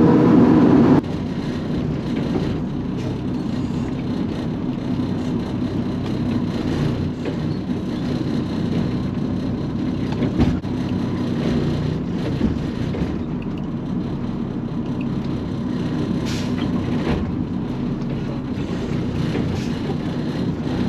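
Automated side-loader garbage truck heard from inside the cab: the engine runs steadily while the lifting arm picks up and dumps a wheeled cart, with a few sharp clunks, the loudest about ten seconds in. A louder stretch of noise cuts off abruptly about a second in.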